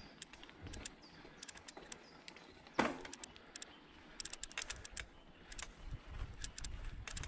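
Mountain bike ridden slowly over a dirt trail: irregular clicks and rattles from the bike and tyres on the ground, with one loud knock about three seconds in.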